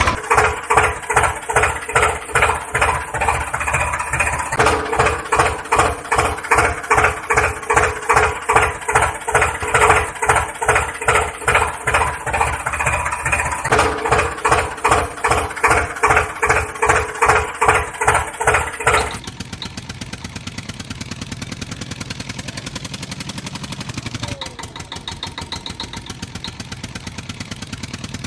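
Tractor engine sound chugging in an even rhythm, about two and a half beats a second. About two-thirds of the way in it drops to a quieter, faster ticking run.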